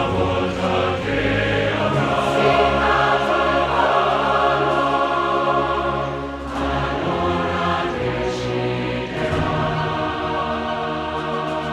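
Choral music: a choir singing held chords over low sustained accompaniment.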